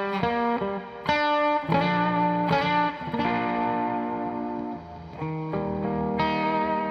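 Ibanez Jet King JTK40 electric guitar played, a run of chords and notes struck one after another and left to ring, a new one about every half second to a second and a half.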